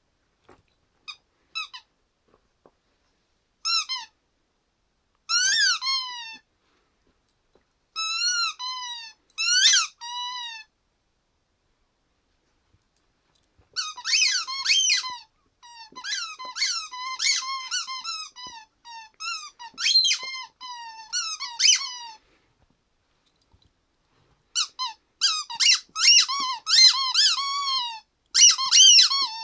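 Rubber squeaky toy being chewed by a small dog, squeaking over and over. It gives short groups of squeaks at first, then long, fast runs of squeaks through most of the second half.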